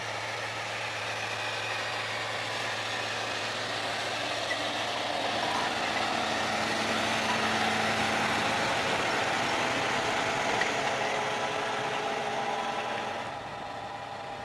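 Heavy machine's engine running steadily under a broad mechanical noise that slowly grows louder, then drops back about thirteen seconds in.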